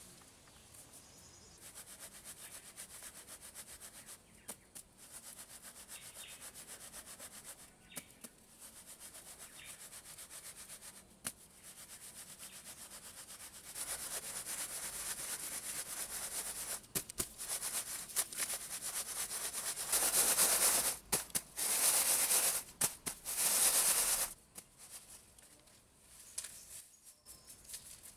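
Dry sand being sifted through a woven bamboo basket: a continuous scratchy rustle of grains rubbing over the weave and falling onto the pile. It grows louder from about halfway and is much louder for about four seconds near the end.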